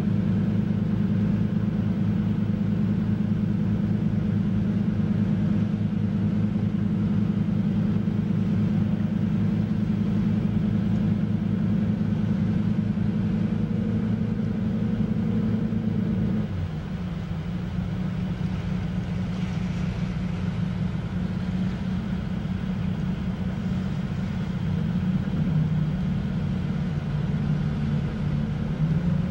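An engine runs steadily with a low, even hum. About 16 seconds in it drops to a lower, slightly quieter note, then picks up a little again after 25 seconds.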